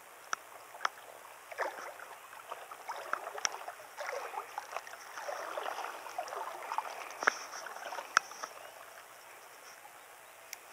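Water lapping and splashing against the hull of a small fishing boat, uneven and soft, with scattered sharp clicks and knocks from handling the rod and reel; the two loudest knocks come about seven and eight seconds in.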